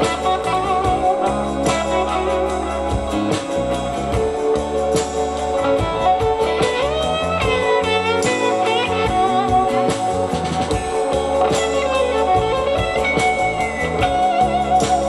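Pioneer CS-501 loudspeakers playing guitar-led music, with notes that bend and slide in pitch.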